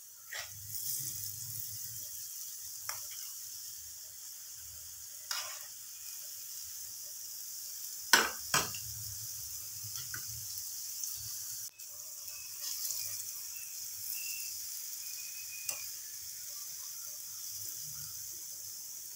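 Hot oil sizzling steadily as balls of urad dal batter deep-fry into bhalle, with a few sharp clicks, the loudest two about eight seconds in.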